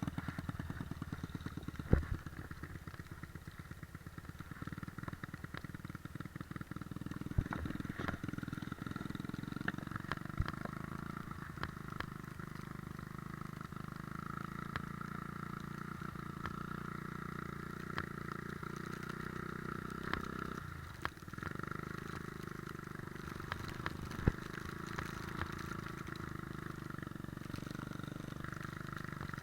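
Three-wheeler ATV engine running under way, its firing pulses plain at first and its pitch rising as it speeds up, easing off briefly about two-thirds through before picking up again. A few sharp knocks stand out over the engine.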